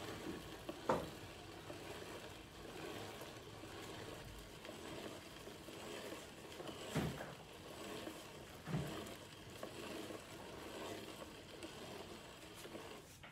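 Red cast-iron hand-cranked corn mill grinding fresh corn kernels into masa: a steady grinding rasp as the crank turns, with a few short knocks.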